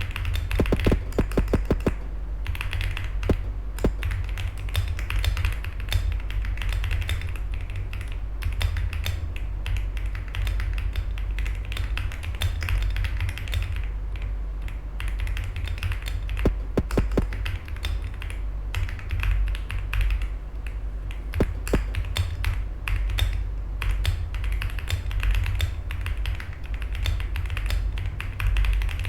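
Fast, continuous typing on a computer keyboard, quick irregular key clicks during a typing-speed test at about 60 words per minute, picked up by an unfiltered microphone. A steady low fan hum runs underneath.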